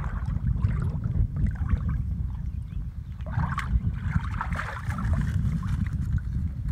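Wind buffeting the phone microphone as a steady low rumble, with dry reeds and grass rustling and crackling as a dog pushes its head through them, strongest about three and a half to five seconds in.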